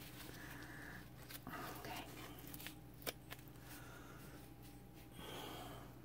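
Near quiet: room tone with a steady low hum, a few faint soft swishes, and two small ticks about three seconds in.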